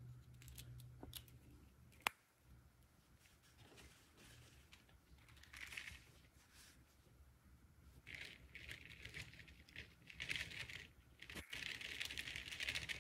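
Hands handling small plastic toy pieces: a few light clicks and one sharp click about two seconds in, then bursts of rustling and crinkling, loudest in the last few seconds.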